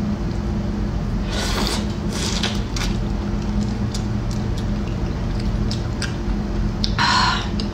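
Mouth noises of someone eating raw shrimp, a few short bursts about a second and a half in, again about two and a half seconds in, and near the end. Under them runs a steady low hum.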